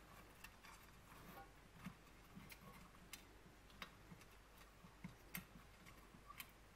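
Faint, irregular light clicks and taps of small metal and ceramic parts being handled: a perforated metal plate and ceramic insulator beads fitted onto a round hotplate housing of an old electric cooker.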